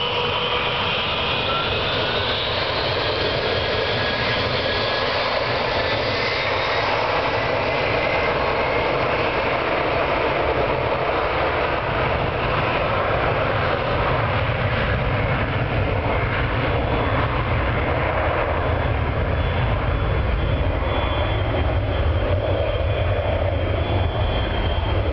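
Tupolev Tu-154M's three Soloviev D-30KU-154 turbofans at takeoff thrust during the takeoff roll: a loud, steady jet roar. Whining tones rise in pitch over the first few seconds, and the low rumble grows stronger in the second half as the aircraft moves off down the runway.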